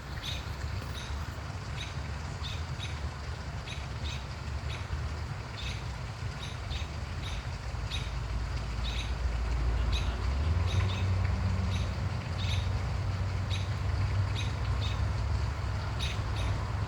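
Robins giving repeated sharp alarm calls while mobbing an owl, a short high call every half second to a second, over a steady low rumble that grows louder about ten seconds in.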